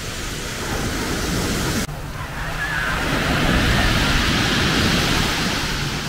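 Mediterranean waves breaking and washing over a pebble beach, the rush of water and shingle swelling to its loudest past the middle.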